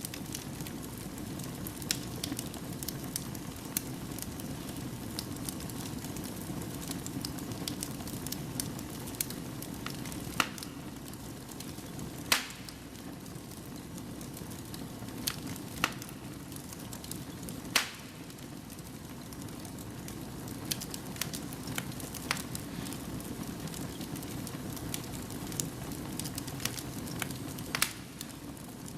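Fire burning in a fireplace: a steady low rush of flames with irregular crackles and sharp pops, two louder pops at about 12 and 18 seconds in.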